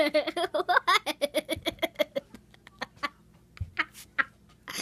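A young girl giggling: a quick run of short laughs that trails off after about two seconds, then a few brief laughs near the end.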